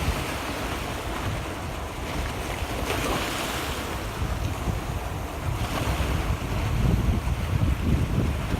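Gentle waves lapping and washing in on a sheltered beach, with a brighter wash of a wave about three seconds in and another a little later. Wind rumbles on the microphone underneath.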